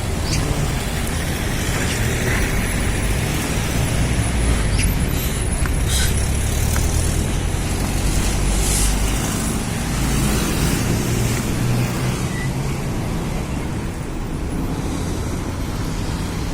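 Steady city street traffic: cars and buses passing, heard as a continuous low rumble.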